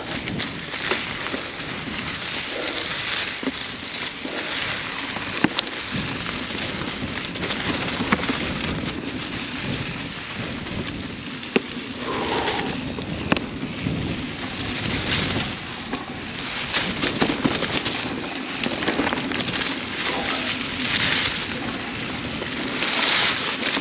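Mountain bike riding along a dirt singletrack: steady tyre and wind noise, with scattered sharp clicks and knocks from the bike over the rough trail.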